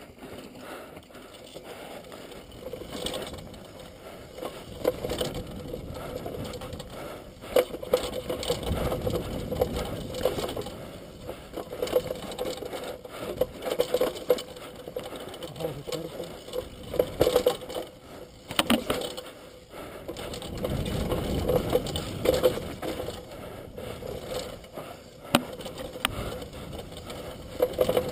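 Downhill mountain bike clattering down a rough dirt trail: the frame and chain rattle, a fast mechanical clicking runs throughout, and sharp knocks mark each bump and drop. A rougher, heavier rumble comes about three quarters of the way through.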